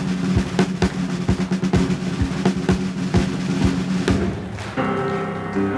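Band music: a steady drum beat of about four strokes a second over held low notes. Near the end the drumming stops and a sustained chord takes over.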